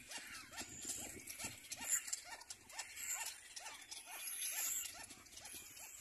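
Cormorant chick begging on the nest: a rapid, even series of short calls, about three a second, each a quick rise and fall in pitch.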